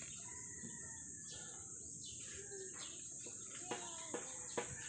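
A steady high-pitched insect drone with scattered bird chirps; a few short calls and clicks come near the end.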